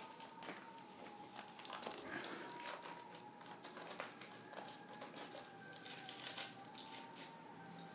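A dog chewing and pulling at the wrapping on a treat, the wrapper crinkling and crackling irregularly, with the loudest crackles about four seconds in and again a little after six seconds.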